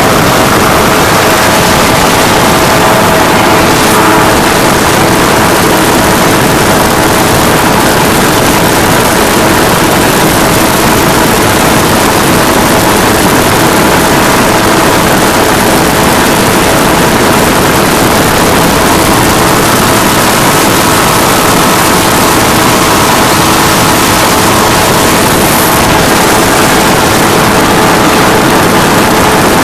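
Powered parachute's engine and pusher propeller running steadily in flight, heard loud from the pilot's seat: an even, unbroken engine drone with steady tones under a dense rushing noise.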